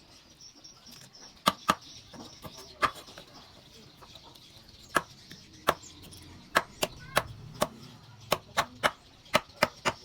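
Chopping with a knife on a board: sharp, uneven knocks, spaced out at first and coming faster in a run of strokes in the second half.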